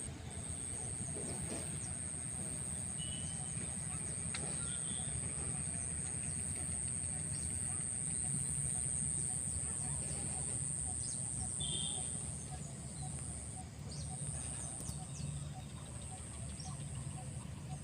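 Outdoor ambience: a steady high-pitched whine with a few brief gaps, a low rumble underneath, and a few short bird chirps.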